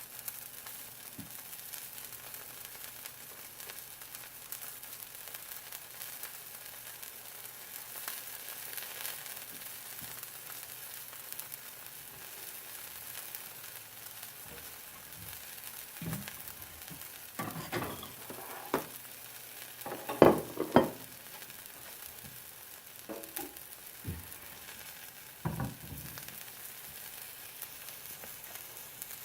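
Cheese-filled arepa sizzling steadily in a frying pan, its cheese frying in its own fat. A run of knocks and clatters comes in the middle stretch, the loudest about twenty seconds in.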